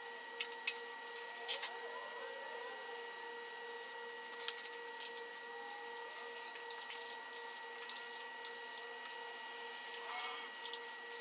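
Scattered light clicks and taps of parts and tools being handled on top of a Lotus Elise's 2ZZ-GE engine, around the cam cover and coil packs, over a steady high-pitched hum.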